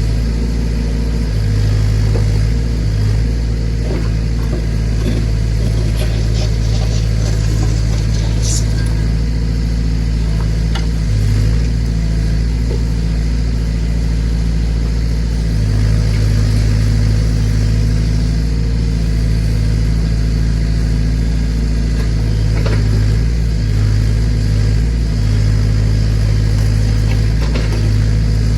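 Massey Ferguson tractor engine running steadily while its backhoe is worked, the engine note swelling and easing again and again. A few sharp metallic clinks about six to nine seconds in.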